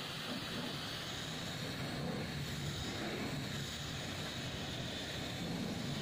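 Pressure washer running steadily, its high-pressure water jet spraying over a soapy car's windscreen and roof.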